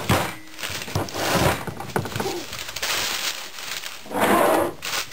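Handling of the 4L80E transmission's oil pan on a newspaper-covered bench: a loud metal knock at the start, then a couple of duller thumps, with newspaper crinkling throughout and a louder rustle a little after four seconds.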